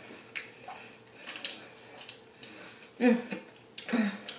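Wet mouth clicks and smacks of a person eating chicken wings and licking sauce off her fingers, then two short 'mm' hums of enjoyment about three and four seconds in.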